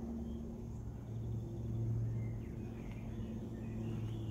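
Outdoor ambience: a steady low hum with faint, scattered bird chirps.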